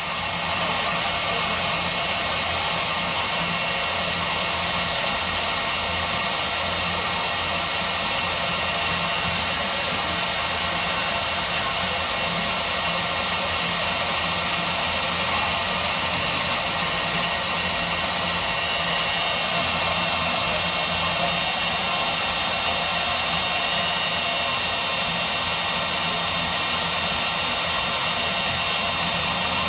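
Milwaukee portable bandsaw running steadily as its Lenox replacement blade cuts through aluminum stock, a slow cut that the owner blames on the Lenox blades.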